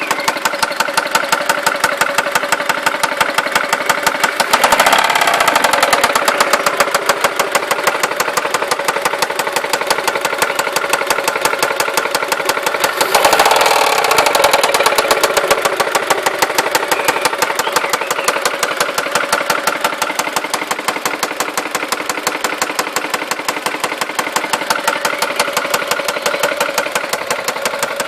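Seat Ibiza 1.4 16v BBY four-cylinder petrol engine running with a rapid, steady knocking. It swells louder twice for a couple of seconds, about four and about thirteen seconds in. The knock persists after fresh oil, a new timing belt idler and new hydraulic lifters, and its cause is unknown to the owner.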